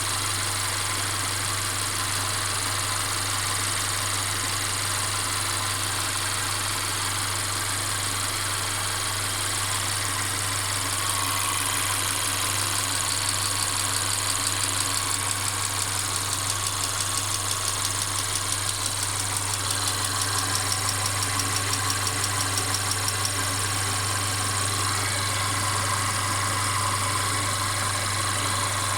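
Mercedes-Benz CLA 250's turbocharged four-cylinder engine running steadily with a continuous rattling noise, which the owner reports hearing all the time. From about 11 s to 23 s a fast, pulsing clatter rises over it, in keeping with the intermittent clacking the owner also reports.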